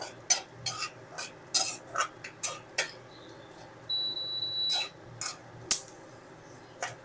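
Metal spatula stirring in a kadai, clinking and scraping against the pan in a string of sharp, irregular clinks while whole spices and asafoetida fry in oil.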